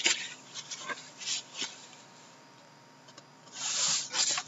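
Sealed cardboard case being handled and turned over in the hands: a knock, then a few light taps, then a short scraping rub of cardboard about four seconds in.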